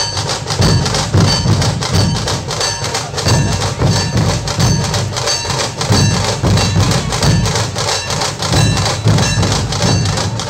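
Drum-led music with a steady beat: deep drum strokes about once a second under quicker high ticks.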